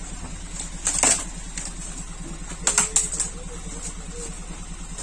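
Sharp clicks and scrapes from cardboard boxes being handled and cut into, in two short clusters about a second in and near the middle, over a low steady hum.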